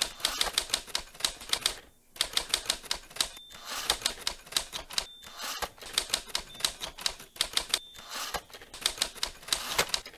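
Typewriter keys clacking in quick runs of strokes, with short pauses between runs and a short high ding now and then.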